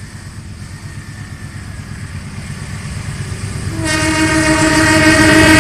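Approaching diesel locomotive and train, the rumble of engine and wheels growing steadily louder; about four seconds in the locomotive's horn sounds one long, steady blast that is still going at the end.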